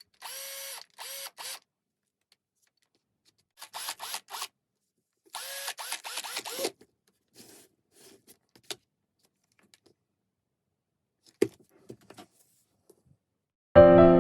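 Makita cordless drill motor run in short trigger bursts, each spinning up with a rising whine. The bursts come in three quick groups, followed by a few scattered clicks. Music starts just before the end.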